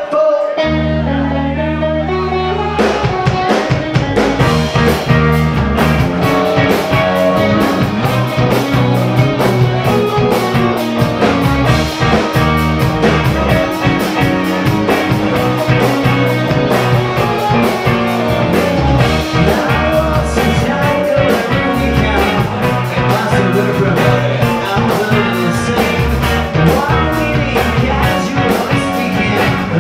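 Live rock band playing: low bass guitar notes alone for about the first two seconds, then drums and electric guitars come in and the full band plays on.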